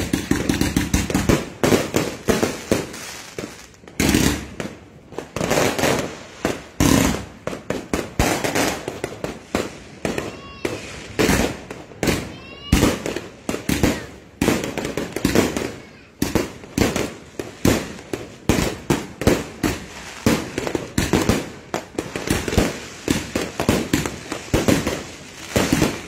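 Aerial fireworks going off in rapid succession, many sharp bangs and crackles a second with no let-up. A couple of short whistles come through about halfway.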